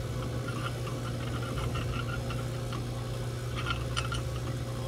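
Light metallic clicks and ticks of a bolt and nut being handled and fitted to a filter-drier shell's end cap, over a steady low hum.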